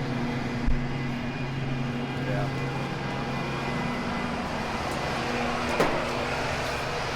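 Steady hum of farm machinery running, with a low drone that fades about four and a half seconds in. A low thump comes under a second in, and a sharp knock near the end.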